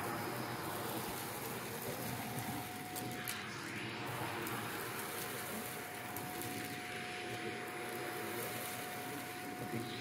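Shark vacuum cleaner running steadily as its nozzle sucks wood-shaving pet bedding off a carpet, the shavings pattering and rattling into the tube, with a thin steady whine in the motor's note.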